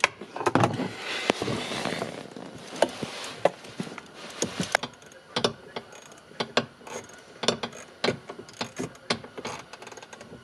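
Hand tools clicking and knocking against metal parts under a dashboard as a bolt at the top of a steering column shaft is worked on. The knocks come at an uneven pace, with rustling in the first couple of seconds.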